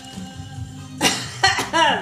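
Background music with a steady low bass line, and about a second in a short vocal outburst from a woman's voice, cough-like at its start.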